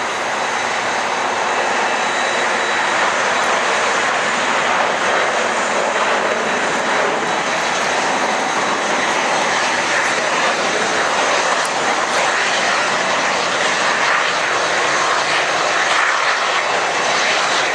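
Airbus A380's four Engine Alliance GP7200 turbofans running at low power as the airliner rolls along the ground after landing: a steady, loud rush of jet noise with a faint high whine.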